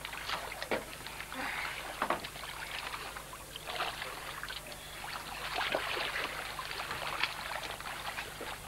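Sea water splashing around people wading and swimming, many small irregular splashes and sloshes.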